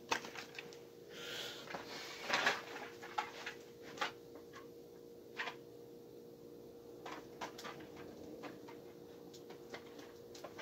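Scattered light clicks and knocks of small objects being handled and set down on a table, over a steady low hum.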